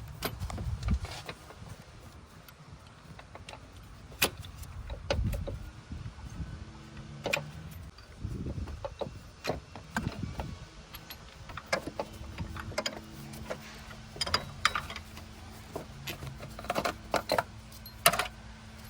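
Hand tools working on a car's engine mount: irregular metallic clinks, clicks and knocks of wrenches, sockets and bolts.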